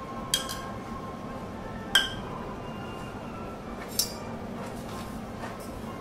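Three sharp metallic clinks about two seconds apart, each with a brief ring, the second loudest: metal cooking tools striking a steel teppanyaki griddle. A steady hum runs underneath.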